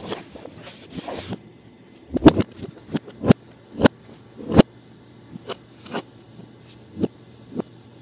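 Handling noise on a tabletop. It starts with rustling and scraping for about the first second and a half, then about a dozen irregular sharp taps and knocks as a hand works a lump of Play-Doh on the hard surface.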